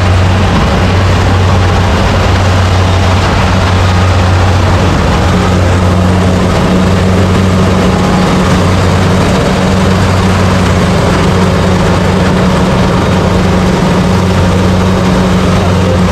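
Rice harvester's engine running steadily, a loud low hum over constant machine noise.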